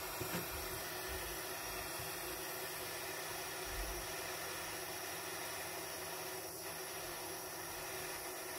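Small jeweler's gas torch burning with a steady hiss as its blue flame reheats the silver solder in a ring's shank.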